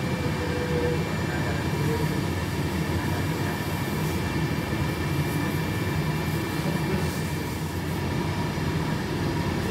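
Steady low rumble of a glassblowing workshop's furnaces running, with a faint steady hum on top and no break.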